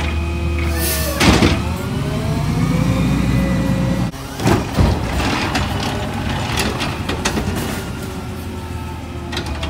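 McNeilus ZR automated side-loading garbage truck running on natural gas, engine humming under a whining hydraulic pump whose pitch glides up and down as the arm sets a cart back down. There is a loud clank about a second in and two more clanks a little after four seconds as the truck pulls ahead.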